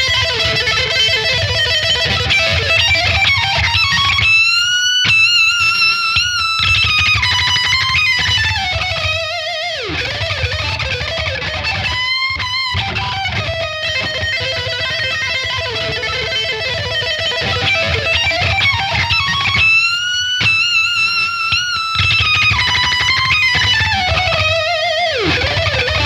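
Heavily distorted electric guitar run through the MegaFuzzie RedFire, a plugin modelled on a Mesa Boogie Dual Rectifier, with the gain at maximum. It plays a metal passage of long, wavering, bending notes over a thick low end, and the same phrase comes round again about halfway through as the part loops.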